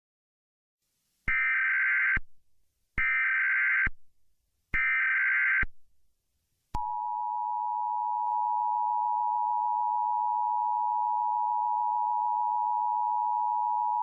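Emergency Alert System tones: three short bursts of digital data tones (the SAME header), about a second and a half apart, then a few seconds in the steady two-tone EAS attention signal (853 and 960 Hz) starts and holds.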